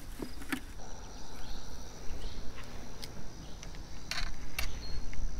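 Steady high-pitched insect chirring with low rustling and a few sharp clicks from handling fishing gear, two of them close together about four seconds in.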